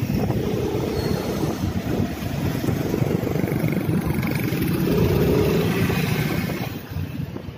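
Motorcycle engine running while being ridden through traffic, heard from the rider's position with wind rushing over the microphone. The noise eases off near the end.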